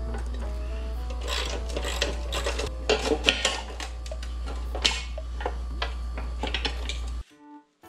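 Steel bar knocking, clicking and scraping against the metal base and vise of an abrasive cut-off saw as it is laid in and positioned by hand, over a steady low hum that cuts off suddenly near the end.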